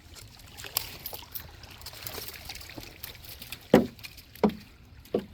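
Water lapping and trickling, with three short splashes, about two-thirds of a second apart, in the second half.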